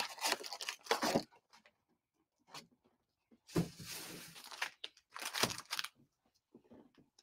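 Foil-wrapped trading-card packs crinkling and a cardboard box rustling as the packs are slid out of the box and stacked, in three short bursts of handling.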